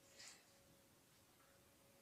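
Near silence: room tone with a faint steady hum and one faint brief scuff about a quarter second in.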